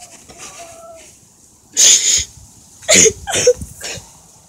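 A person crying: sharp sobbing breaths and sniffles, one about two seconds in and a cluster of three around the three-second mark, with a faint whimper near the start.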